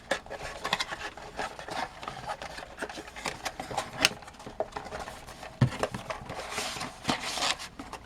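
A CPU retail box being opened and its contents handled: cardboard and plastic rubbing and rustling with scattered small clicks. There is a sharp click about four seconds in and a knock soon after.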